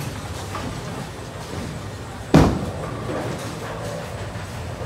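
Bowling ball landing on the lane at release: a single heavy thud a little over two seconds in, over the steady low rumble of a bowling alley.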